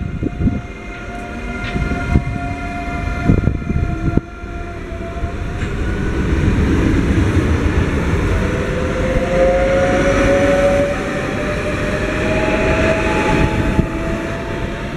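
CFL Class 2200 double-deck electric multiple unit running past along the platform: wheel and rail rumble with a few knocks in the first seconds, then a whine that slowly rises in pitch as the sound grows louder through the second half.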